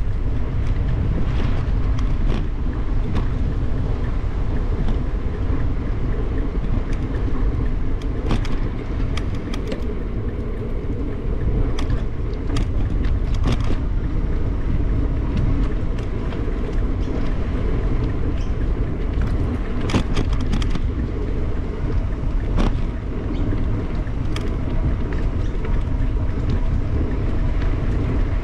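Bicycle rolling along a paved path: a steady low rumble of wind on the microphone and tyre noise, with scattered short clicks and rattles.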